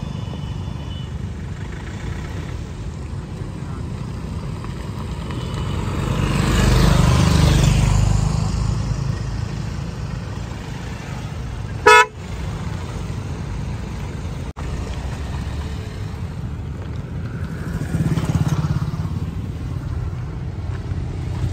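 Steady low road and engine rumble of traffic, swelling louder around seven seconds in and again near the end. About twelve seconds in comes a single short car-horn toot, the loudest sound.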